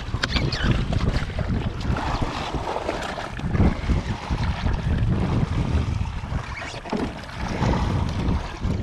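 Wind buffeting the microphone in uneven gusts, with choppy sea water splashing against a drifting jetski.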